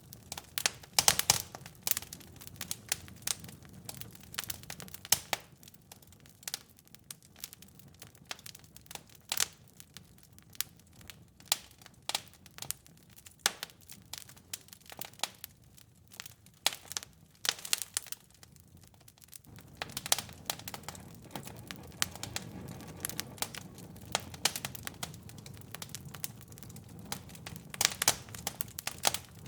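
Wood fire in a fireplace crackling, with irregular sharp pops over a soft low hiss of burning. The hiss grows fuller about two-thirds of the way through.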